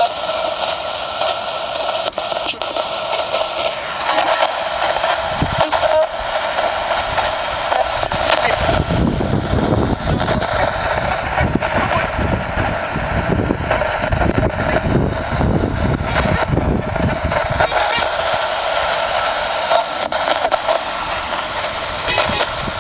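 Home-made ghost box (a radio that sweeps through stations) hissing static from its small speaker, with chopped fragments of broadcast sound. A low rumble joins in for several seconds in the middle.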